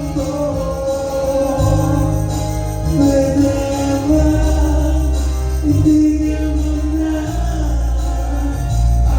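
Music with singing: sustained sung notes over a steady bass line.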